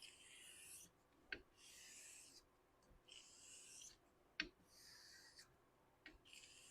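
Faint, even strokes of a straight razor's blade drawn across a wet whetstone, about one stroke every second and a half. A light click comes between some strokes as the blade is rolled over on its spine.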